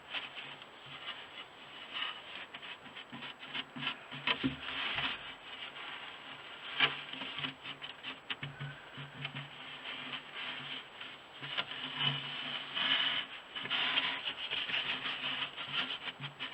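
Handling noise of rubbing and scraping, with many scattered light clicks, as a trail camera is worked by hand in a nest box.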